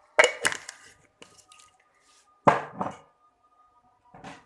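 Kitchenware knocking sharply twice, each knock followed by a lingering ringing tone, with a lighter knock near the end.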